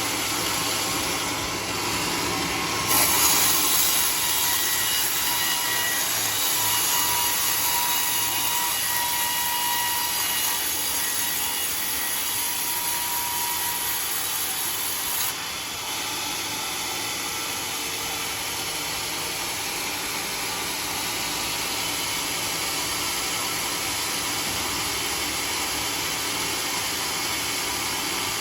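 Sawmill saw cutting through a teak log: the cut grows louder and hissier about three seconds in and lasts about twelve seconds. Then the machine runs on steadily without cutting.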